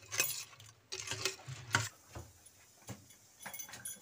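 A spoon stirring yogurt raita in a steel pot, clinking and scraping against the metal in several strokes over the first two seconds, then only a few fainter clicks.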